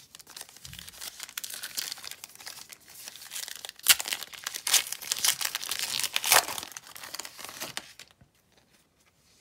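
Foil wrapper of a 2019 Diamond Kings baseball card pack crinkling and tearing as it is ripped open by hand, with sharp rips about four and six seconds in. The crinkling stops about a second before the end.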